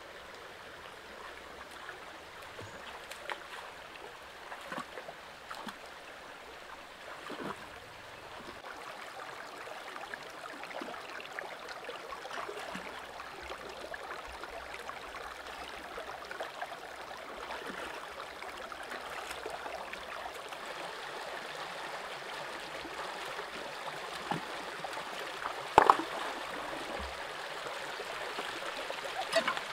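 Shallow rocky stream running steadily, with scattered small splashes and clicks of stones as hands search under rocks in the water, and one sharp, loud knock near the end.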